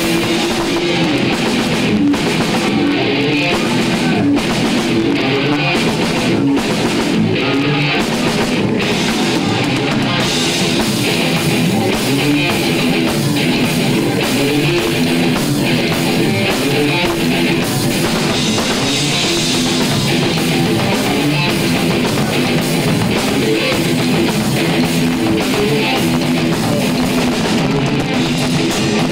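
Technical death metal played live: distorted electric guitars riffing fast over a drum kit, with dense drum hits throughout and more cymbal wash from about ten seconds in.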